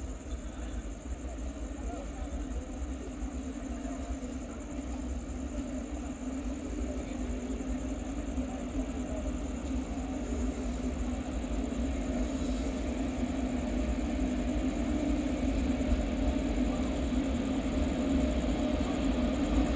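Train at a station running with a steady low rumble and hum, growing gradually louder as it approaches.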